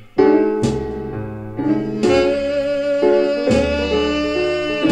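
Jazz-style recorded music played back through Von Schweikert Vortex Screen floor-standing loudspeakers: a melodic lead of held notes over a steady bass line.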